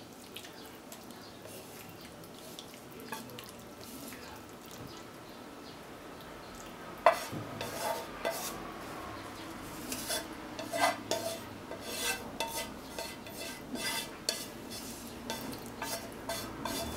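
A utensil scraping and knocking against a frying pan as eggplant miso stir-fry is pushed out onto a plate, with a faint hint of sizzling. Fairly quiet at first, then a sharp knock about seven seconds in and a run of quick scrapes and taps.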